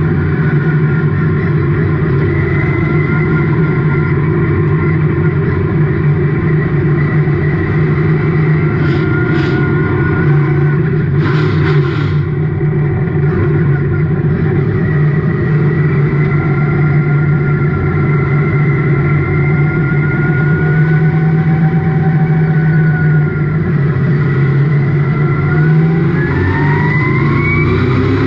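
Race car engine running hard and steady, heard from inside the roll-caged cockpit, with a whining note that wavers above it. There are brief hissing bursts about nine and twelve seconds in, and near the end the revs climb.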